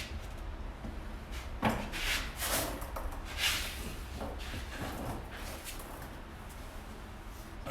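A few short scrapes and knocks of exhaust pipe being handled and slid into place under a car, most of them in the first five seconds.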